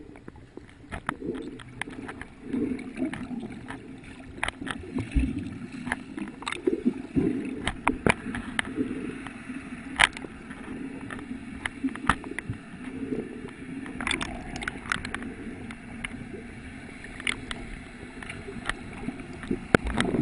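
Underwater sound from a snorkeler's camera: a muffled, wavering low rumble of moving water, with scattered sharp clicks and pops.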